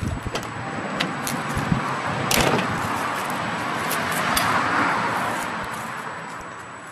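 The sliding side door of a VW T5 California camper van is unlatched and rolled open, with clicks from the latch and one sharp clunk about two and a half seconds in as it reaches its stop. Underneath is a rush of noise that swells and then fades toward the end.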